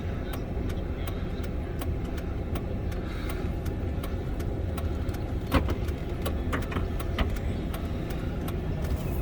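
Steady low engine and vehicle rumble inside a pickup truck cab, with a regular ticking about three times a second and a couple of louder clicks midway.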